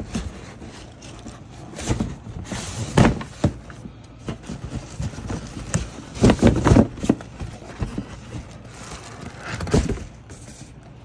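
A cardboard shoe box being handled and opened: scattered knocks and thumps, with short bouts of scraping and rustling cardboard.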